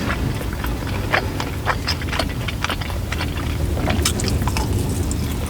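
Close-up chewing and biting of food, with many short wet clicks and smacks of the mouth, over a steady low rumble.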